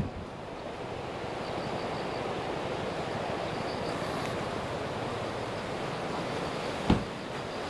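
Steady rushing of wind on the microphone outdoors, with a single low thump about seven seconds in.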